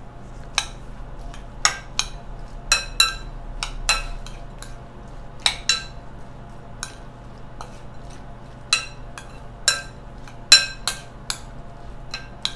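Metal spoon clinking against a glass mixing bowl while stirring chopped tomato, onion and jalapeño. Fifteen or so sharp clinks come at irregular intervals, each ringing briefly, with a quieter gap a little past the middle.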